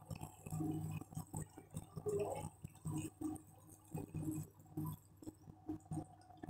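Chicken adobo's thick soy-vinegar sauce simmering in a pot, bubbling with small irregular pops and crackles over a low steady hum.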